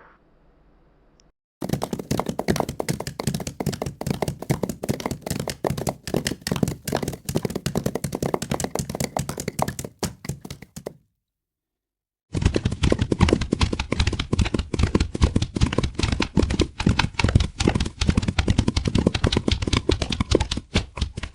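Custom Godzilla sound effect: a rapid, uneven rattle of knocking clicks, many per second, in two long runs separated by about a second of silence.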